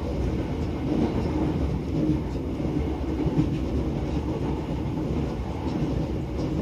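Tobu 70000 series electric train running, heard from inside the car: a steady low rumble of wheels on rail, with a few faint clacks near the end.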